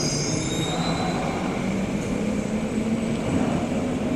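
Tokyo Metro Hibiya Line electric train pulling away from the platform. Wheels rumble steadily on the rails under a low motor whine that rises in pitch as the train accelerates.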